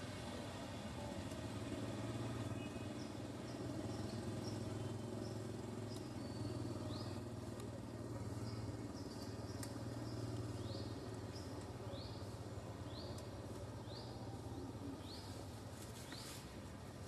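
Outdoor ambience: a steady low hum under a run of short, rising, high chirps repeated every half second or so, starting a few seconds in.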